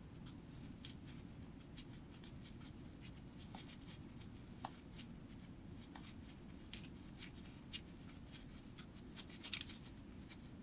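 Needle-nose pliers working a small rusty coiled spring, making light scattered metallic ticks and scrapes, with a sharper cluster of clicks near the end. A steady low hum runs underneath.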